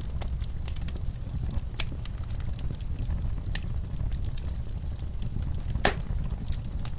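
Wood fire crackling in a fireplace: a steady low rumble of flames with scattered sharp pops, the loudest one near the end.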